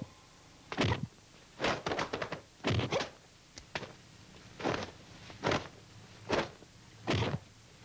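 Dubbed kung fu sound effects for kicks and strikes: a dozen or so sharp whooshes and thuds, some alone and some in quick runs of two or three, with short quiet gaps between.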